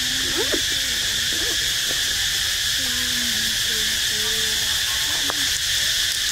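Outdoor ambience: a steady high hiss, with faint low hooting calls several times, some held level and some sweeping briefly upward.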